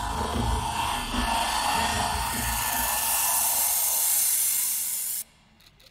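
A steady hissing noise swell at the close of the routine's music, with a low beat fading under it at first; it cuts off suddenly about five seconds in.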